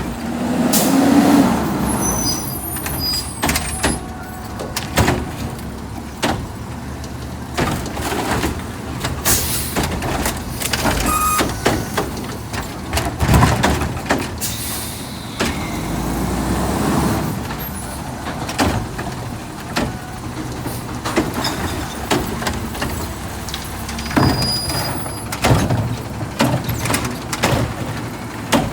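Autocar ACX Xpeditor garbage truck with a McNeilus front-loader body at work: the engine runs steadily under repeated metallic clanks and knocks, with several bursts of air-brake hiss.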